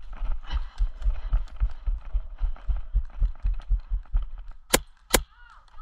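Running footsteps on dry grass and dirt, heard as low thumps through a body-worn camera, about four a second, stopping about four seconds in. Then two sharp cracks less than half a second apart, airsoft gun shots.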